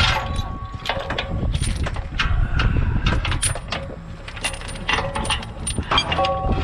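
Repeated metallic clanks and rattles, some ringing briefly, over a steady low engine rumble: heavy recovery gear being worked.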